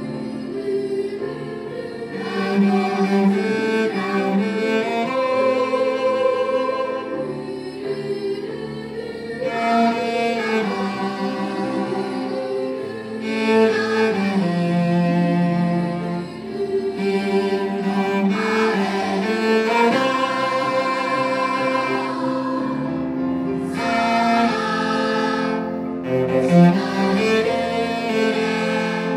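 Cello bowed through the melody of a Japanese school song, with held notes that change every second or so.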